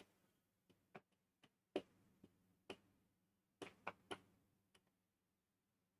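Marker pen tapping and stroking on a whiteboard as a formula is written: about a dozen faint, short, irregularly spaced ticks.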